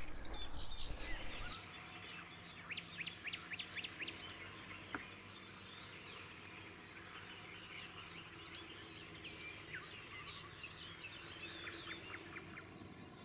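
Small birds chirping faintly, with quick trills of rapidly repeated high notes twice, about two and a half seconds in and again near the end. A low noise fills the first second and a half, and there is a single click about five seconds in.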